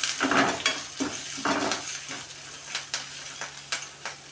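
A metal ladle scraping and stirring sliced onions, chillies, garlic and curry leaves as they sizzle in oil in an aluminium kadai, frying the tempering on a medium flame. The strokes come thick in the first two seconds, then a couple more, spaced apart.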